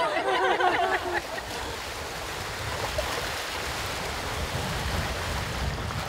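A group of people's voices for about the first second, then small lagoon waves lapping and washing against shore rocks in a steady wash.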